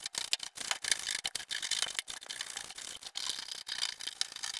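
Stiff-bristled washing machine cleaning brush being pushed and pulled inside the washer's tub gap, a rapid, irregular scratchy scrubbing of bristles against the inner tub wall.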